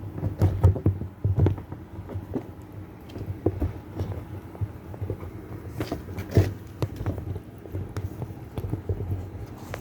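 Scattered knocks and clicks of a washing machine seal and parts being handled and pressed into place by hand, over a steady low hum. The sharpest knock comes about six and a half seconds in.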